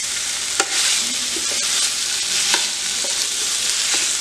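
Boiled potato pieces in a spiced curd masala sizzling steadily in hot oil in a frying pan while a steel ladle stirs them. A few sharp clicks of the ladle against the pan come through, the loudest about half a second in.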